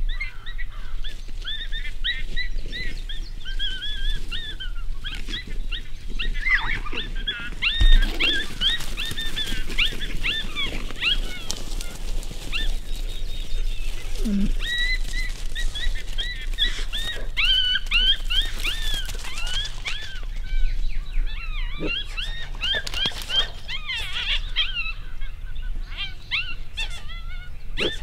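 A group of coyotes yipping and howling in a continuous chorus of quick rising and falling calls, with a single low thump about eight seconds in.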